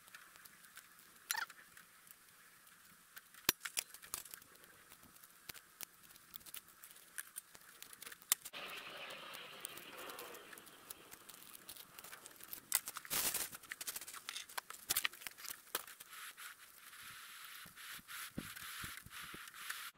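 Lumps of charcoal being laid on the ash of a charcoal fire pit: scattered clinks, scrapes and rustles, with a louder knock about 13 seconds in.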